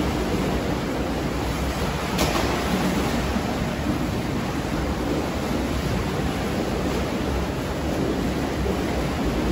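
Spa pool jets churning the water, a steady rushing and bubbling, with one brief sharp click about two seconds in.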